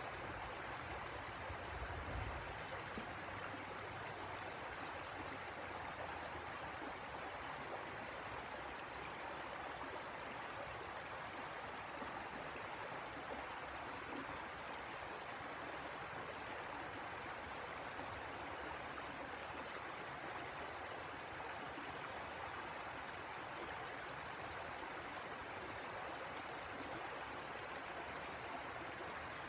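The Tanew river rushing steadily over small rocky rapids and low cascades, with a brief low thump about two seconds in.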